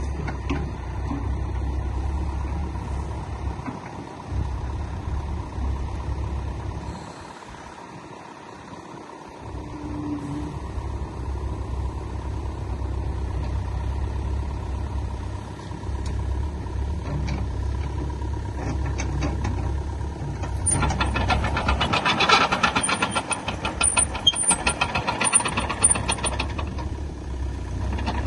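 Hitachi ZX85USB-5A excavator's diesel engine running, falling away for a couple of seconds about a third of the way in and then picking up again. In the last seven seconds or so a dense, rapid metallic clatter joins the engine.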